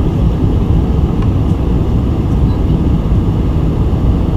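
Steady low rumble of cabin noise aboard a Boeing 747-400 in flight on approach, the airflow and the Pratt & Whitney PW4056 engines heard from inside the cabin.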